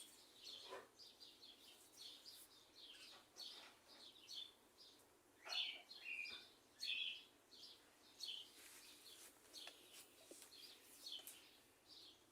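Birds chirping faintly: many short, high chirps at irregular intervals.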